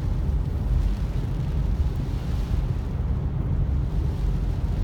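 Steady low rumble of road and tyre noise heard inside a car driving on a rain-soaked, flooded road, with a fainter even hiss above it.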